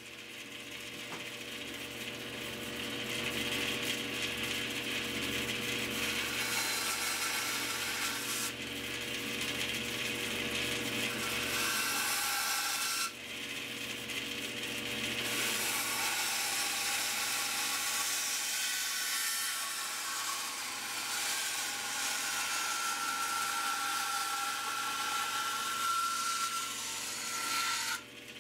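Band saw running and cutting pine, the cutting noise rising and falling as the block is fed through curves along a steady motor hum. The sound breaks off abruptly about halfway and again near the end.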